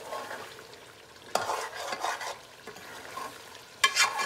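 Metal spoon stirring and scraping chicken and masala around an aluminium pot over a low sizzle of frying on high flame. There are a few scraping strokes, the loudest near the end with a brief metallic ring.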